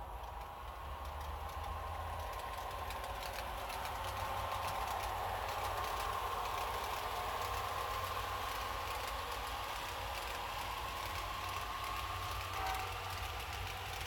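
HO-scale model passenger cars rolling past on the track, a steady rumble of small metal wheels on the rails that swells over the first few seconds as the cars come close. A brief faint tone sounds near the end.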